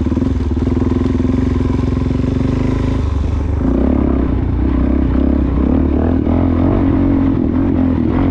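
Motorcycle engine running as the bike picks its way along a rough trail, its note growing louder and fuller about three and a half seconds in.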